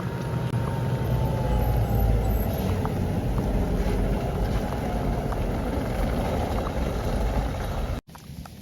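A vehicle's engine and tyres straining on a snow- and ice-covered road: a whine that rises, then slowly sinks over the first two or three seconds, over a steady low rumble, typical of a car spinning its wheels on the icy hill. The sound cuts off abruptly near the end.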